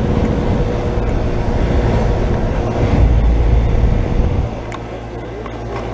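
Outdoor unit of a 2004 Comfort Range heat pump running in heat mode: a steady hum and whoosh of fan and compressor. A heavier low rumble drops away about four and a half seconds in, leaving the hum a little quieter.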